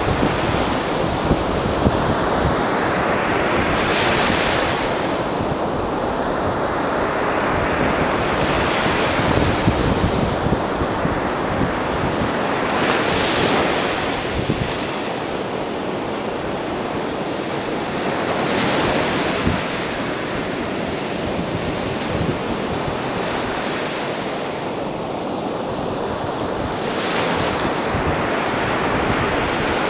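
Ocean surf breaking and washing up a sandy beach, swelling louder every several seconds as each wave comes in, with wind buffeting the microphone.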